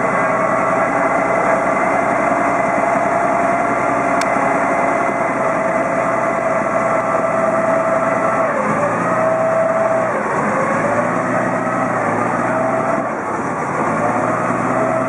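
A river ferry's engine running steadily, its pitch dipping briefly twice a little past the middle.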